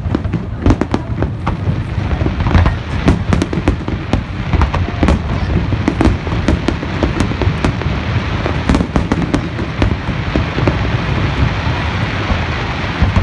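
Aerial fireworks display: a rapid, irregular string of shell bursts over a continuous crackle. The bangs thin out over the last few seconds while the crackling carries on.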